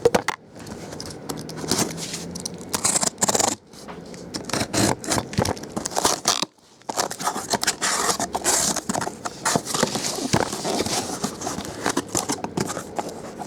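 Irregular scraping, crinkling and snipping as the packaging of a sealed case of trading-card boxes is cut open and the boxes are handled. It stops briefly twice.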